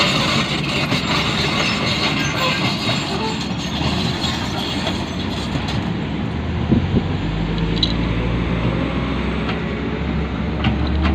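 Hitachi excavator working: diesel engine and hydraulics running with a clattering, hissing mechanical noise and occasional metallic clicks. After about six seconds the hiss eases and a steady low engine drone takes over.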